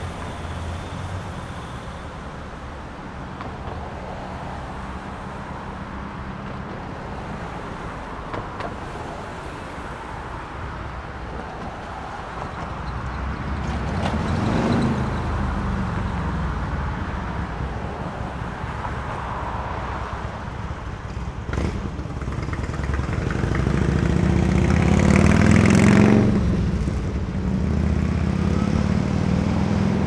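Suburban street ambience: a steady low hum of distant traffic, with a car passing about halfway through and a louder one passing near the end, each rising and then fading away. A single short knock sounds between the two.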